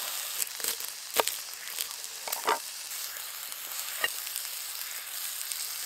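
Fillet steak sizzling in a hot cast-iron pan over a campfire: a steady hiss with three sharp pops along the way.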